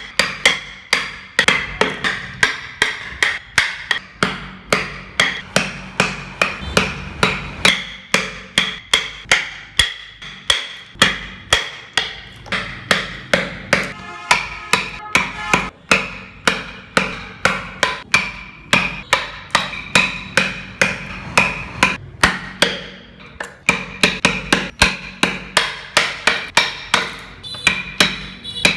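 Hammer striking over and over at about two to three blows a second, each blow with a brief ring.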